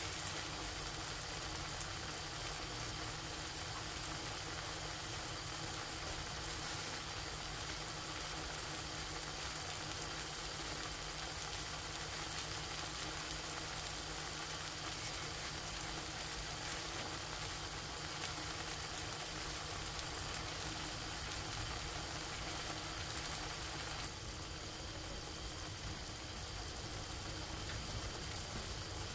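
Vegetable paella simmering in a wide pan: a steady crackling sizzle and bubbling as the rice cooks in the broth.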